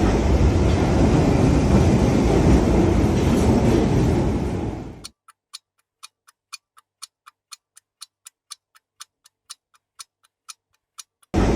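A loud, steady rushing noise, of a vehicle or train kind, cuts off sharply about five seconds in. A clock then ticks evenly, about four ticks a second, until the loud noise starts again near the end.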